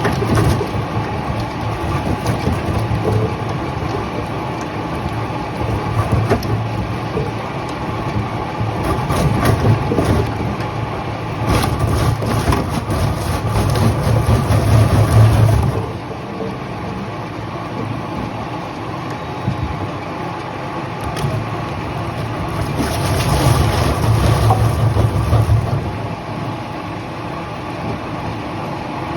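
Sawmill machinery running steadily with a constant hum, getting louder twice for a few seconds, about twelve seconds in and again near the end.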